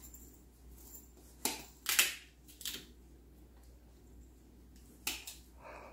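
A kitchen knife cutting pieces of raw cassava root held in the hand: a few short, sharp cuts with quiet between them.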